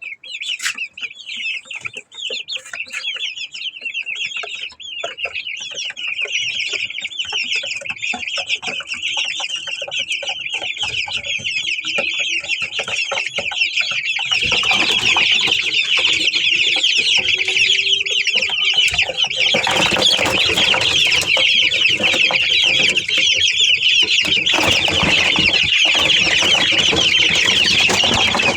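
A brood of white Aseel chicks peeping nonstop, a dense chorus of high, rapid chirps that grows louder about halfway through.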